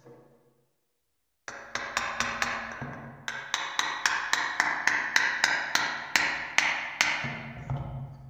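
Hammer blows in a steady rhythm, about twenty strikes a few per second, each ringing briefly, as the rusted pickaxe is worked on.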